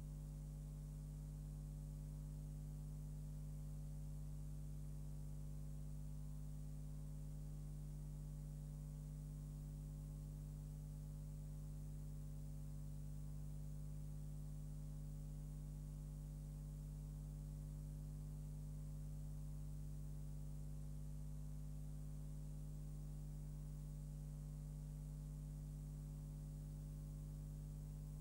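Steady electrical mains hum with a faint hiss, unchanging throughout; no other sound is present.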